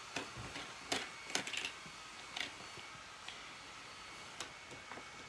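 Scattered small clicks and taps, about half a dozen and strongest in the first two seconds, from the parts of a model ship being handled and taken apart, over a faint steady high tone.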